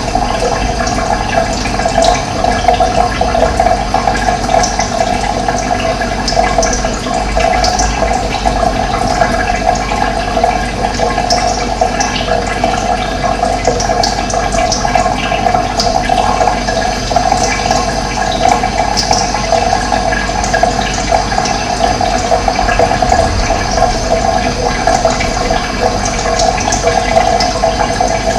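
Steady rush of running water, with short bird chirps scattered over it.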